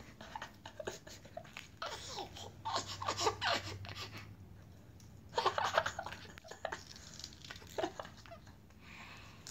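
A baby laughing in bursts of giggles. There is one long bout from about two to four seconds in, and another a little past five seconds.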